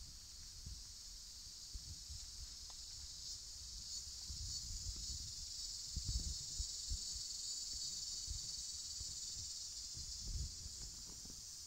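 Steady, high-pitched insect chorus in tropical forest, a continuous shrill hiss, with soft irregular low thumps from footsteps and camera handling.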